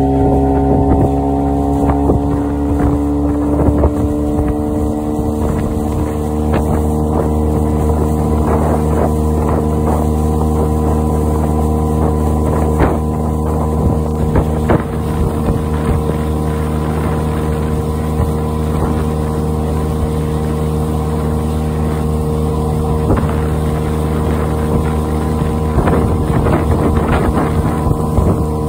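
Boat motor running steadily at speed on the water, its pitch rising over the first couple of seconds and then holding even, with water rushing and wind buffeting the microphone.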